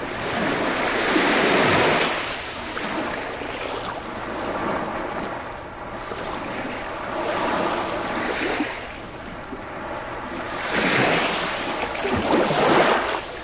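Sea surf: waves breaking and washing up the shore, the noise swelling and falling back in several surges, loudest about a second in and twice near the end.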